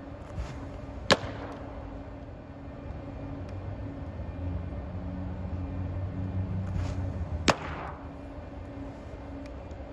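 Two pitched baseballs popping into a catcher's mitt, about six seconds apart, each pop sharp and echoing, with a softer thud about half a second before each. A steady low hum runs underneath.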